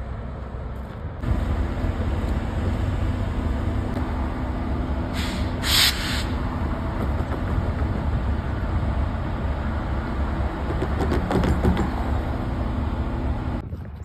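Norfolk Southern diesel locomotive running past slowly, a steady low engine rumble, with a short loud hiss of air about five seconds in.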